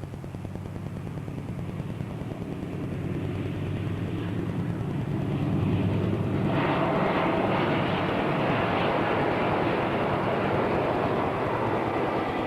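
Santa Fe diesel locomotives approaching with a steady low engine drone that grows louder. About six and a half seconds in, the lead units go by with a loud, broad rumble.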